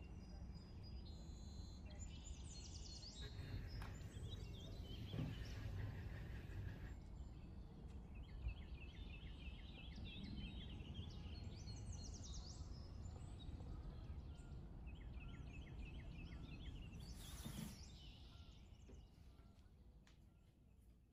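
Birds chirping and singing in short repeated phrases over a steady low outdoor background rumble, fading down near the end.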